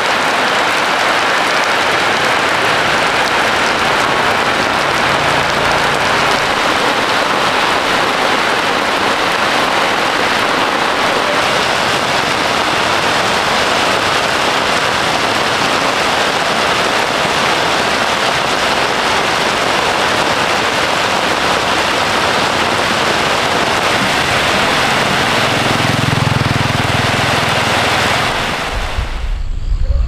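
Heavy rain pouring down steadily, a dense loud hiss. A low rumble swells briefly near the end, and the rain sound drops away just before the end.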